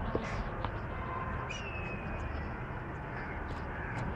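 Steady outdoor background rumble with a few faint clicks and a short falling whistle about one and a half seconds in.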